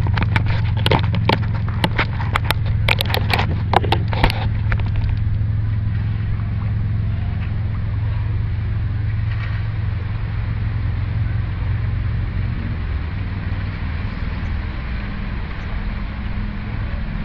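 A steady low rumble with a constant hum under it, with a quick run of sharp clicks over the first four seconds that then stop.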